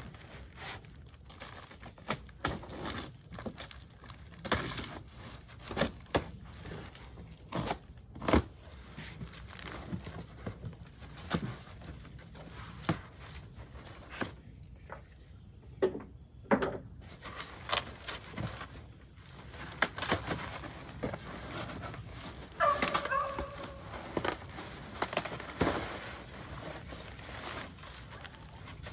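A large cardboard shipping box being opened by hand: its flaps and packing crinkle and scrape, with irregular sharp knocks and crackles. A short pitched sound about two-thirds of the way in.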